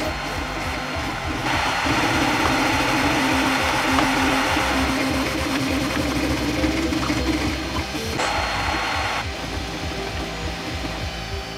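Background music with a steady beat, under a desktop 3D printer's stepper motors buzzing in short tones that jump in pitch as the toolhead moves while printing. A hiss comes in about a second and a half in and again briefly around eight seconds.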